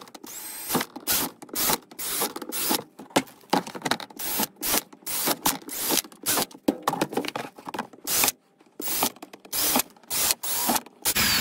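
DeWalt cordless drill boring small pilot holes through the thin wall of a plastic storage box, the bit cutting and scraping the plastic in many short bursts, about two a second.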